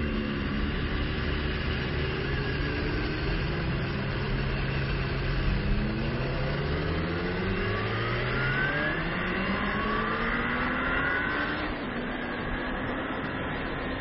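Sport motorcycle engine heard from onboard, accelerating hard with its pitch climbing, breaking once about six seconds in as it shifts up, then falling back about twelve seconds in, over steady wind rush.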